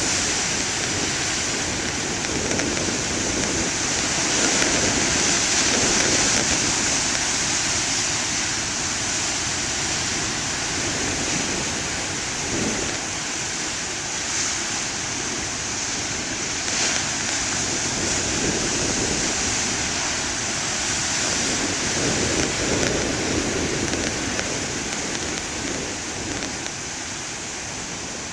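Ocean surf breaking on a beach: a continuous rush of water noise that swells and eases gently as waves come in.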